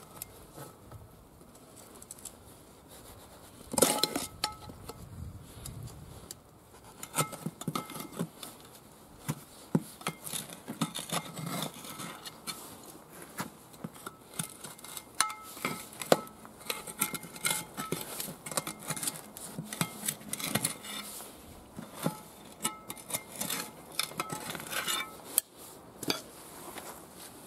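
Steel tire levers clinking and scraping against a rusted steel wheel rim as a tractor tire's stuck bead is pried off, in many sharp metallic clicks and knocks with a louder knock about four seconds in.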